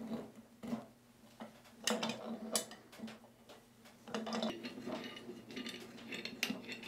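Metal clicks and clinks of tongue-and-groove pliers gripping and turning the brass shank fitting at the end of a Kinetic Water Ram's stainless-steel air cylinder, loosening it to take it off. A run of separate sharp clicks, the loudest about two seconds in.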